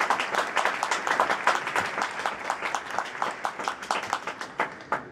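Large audience applauding, many hands clapping at once; the clapping thins out and dies away near the end.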